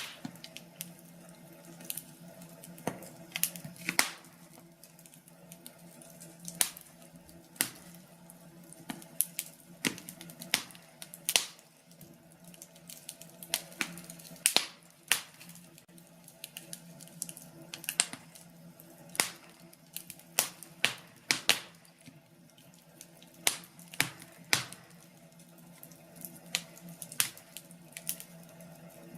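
Wood fire in a fireplace crackling, with irregular sharp pops several times a second at its busiest, over a low steady hum.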